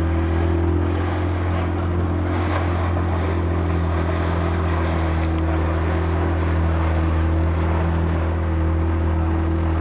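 A small open boat's motor running at a steady speed, a constant hum, with water and wind rushing past the hull.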